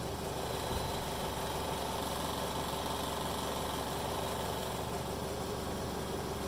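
Rebuilt BRP-1 oilless recovery pump and its drive motor running steadily while pumping against close to 150 psi in a pressure test, an even mechanical hum with a steady whine.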